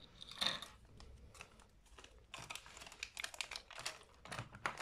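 Faint handling noise: small plastic clicks and taps with crinkling of plastic component bags, as hands sort parts in a plastic organizer box.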